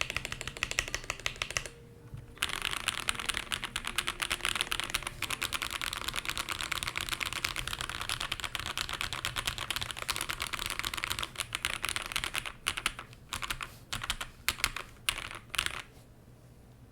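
Mechanical keyboard typing on unlubed Akko CS Sakura light linear switches, which have a POM bottom housing and stem and a polycarbonate top, with a clacky sound. Fast, continuous keystrokes, with a brief pause about two seconds in, thin out to scattered key presses after about eleven seconds and stop shortly before the end.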